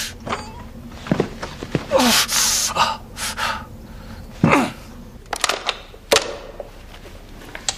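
A man gasping and grunting with strain, in short breaths that fall in pitch, with a few sharp knocks in the second half.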